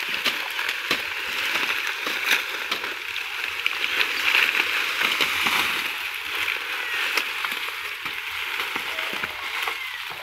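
Dry sugarcane leaves and stalks rustling and crackling as a large bundle of cut cane is gathered and lifted, with many small snaps throughout.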